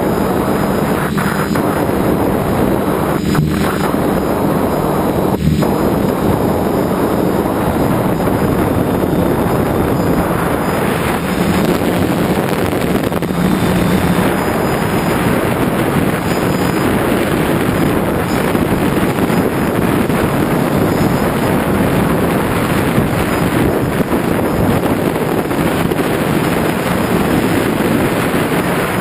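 DJI F550 hexacopter's brushless motors and propellers running in flight: a steady buzz with a faint low hum, mixed with wind rushing over the onboard camera's microphone.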